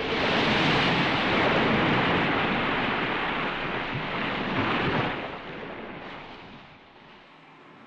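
Wind and surf at the sea: a loud, even rush that holds for about five seconds, then dies away.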